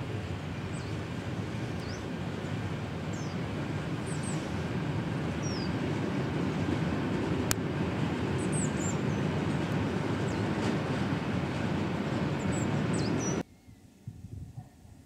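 Train hauled by the E 422.0 electric locomotive crossing a bridge: a steady rumble of wheels on rails that grows louder, with a single sharp click about halfway through. The rumble cuts off suddenly near the end, leaving a much quieter background.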